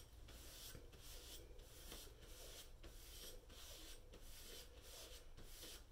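Faint, even back-and-forth rubbing of a Damascus steel kitchen knife blade stropped on a trouser leg to hone the edge, about three strokes every two seconds.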